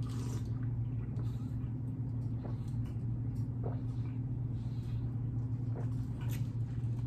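Drinking an iced drink from a plastic cup, with faint, widely spaced swallowing clicks over a steady low hum.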